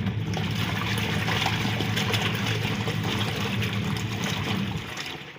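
Washing machine running its wash cycle: a steady motor hum with water churning and sloshing in the tub.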